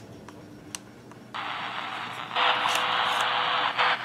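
A few light clicks of buttons pressed on a Grundig E Traveller VII portable radio, then the radio's speaker comes on with a steady hiss of static between stations, stepping louder about a second later.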